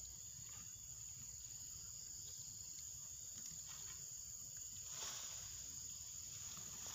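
Insects calling in one steady, high-pitched drone, with a faint low rumble beneath.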